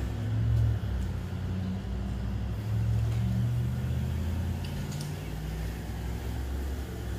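A motor vehicle's engine running with a low rumble, its pitch drifting up and down.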